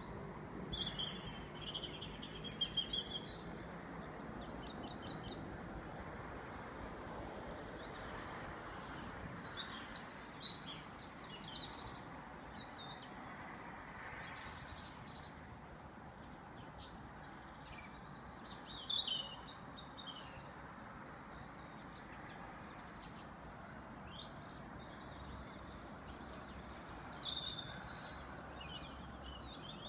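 Evening chorus of songbirds: several birds singing in short, high phrases that come and go, loudest around ten seconds in and again near twenty, over steady background noise.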